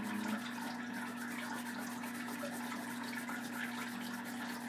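Oil pastel rubbing on drawing paper in repeated soft coloring strokes, a scratchy hiss, over a steady low hum.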